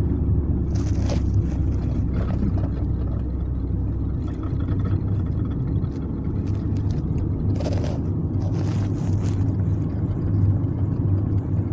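Steady low road and engine rumble heard inside a moving car's cabin, with two brief hisses, about a second in and again near eight seconds.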